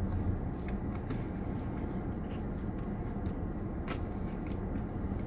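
Steady low hum inside a parked car, with a few faint small clicks from eating ice cream with a plastic spoon.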